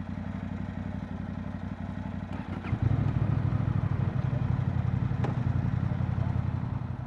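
Motorcycle engine idling, its note stepping up louder and fuller about three seconds in and holding there.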